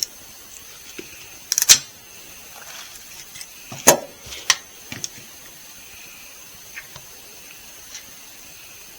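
Game shears snipping through a frog's leg joint: a handful of sharp clicks, the loudest just under two seconds in and around four seconds in, with fainter ones later.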